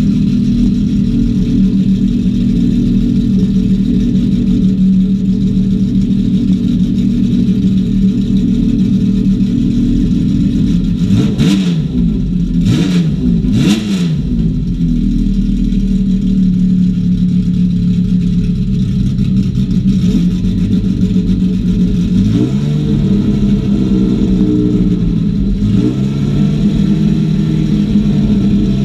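Classic Formula 1 car engine idling. It takes three sharp throttle blips about halfway through, and later its revs rise and fall twice more slowly.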